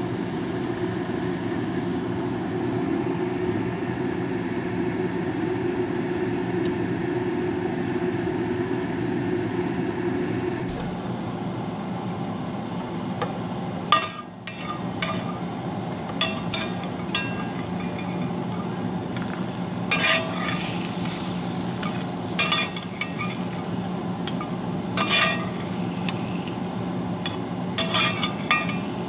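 A pot of carrot and lentil soup bubbling steadily for about ten seconds. Then cashews toasting in a cast-iron skillet, with a spatula stirring and scraping them against the pan in scattered clicks over a light sizzle.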